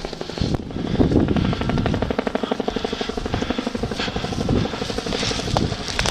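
Airsoft electric guns firing on full auto: a fast, steady rattle of shots many times a second.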